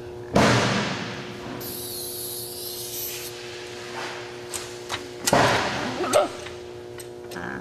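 Two loud knocks echoing in a large hall, the first about half a second in and the second near the five-second mark, with a brief high hiss between them over a steady hum.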